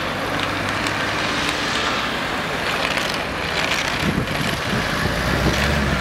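Cars driving slowly past, one after another, with engine hum and tyre noise over steady road traffic.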